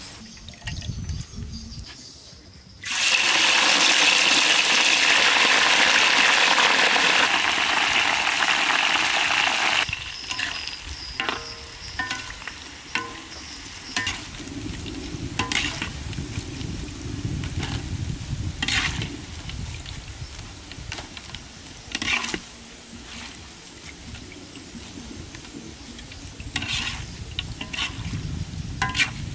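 Food deep-frying in a wok of hot oil: a loud sizzle bursts out about three seconds in as baby frogs and catfish go into the oil, and drops after about seven seconds to a quieter bubbling. A wire spider strainer clinks against the wok now and then.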